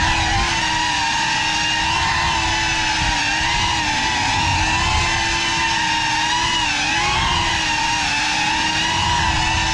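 Motors and ducted propellers of a Geprc Cinelog35 FPV cinewhoop on 6S in flight: a steady multi-toned whine whose pitch dips and recovers briefly as the throttle is eased, around three seconds in and again near seven seconds.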